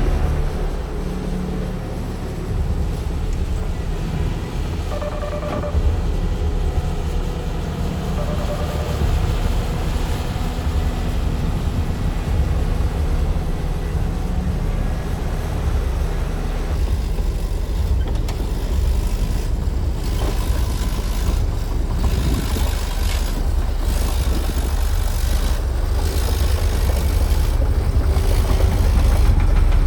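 Heavy diesel machinery running with a steady, deep rumble.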